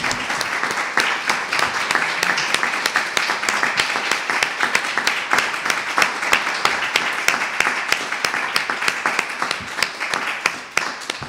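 Audience applause: many people clapping steadily, fading out at the end.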